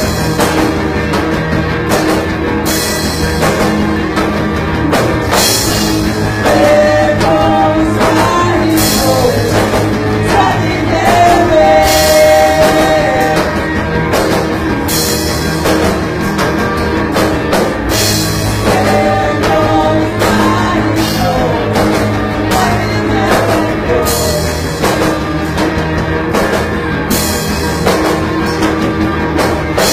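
Rock music with a singer, playing loud and continuously.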